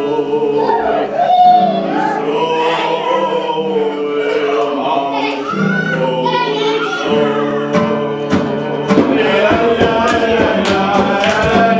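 Several voices singing a Hebrew song together with musical backing. A little past halfway, sharp rhythmic percussive beats join in and quicken, and the music gets louder.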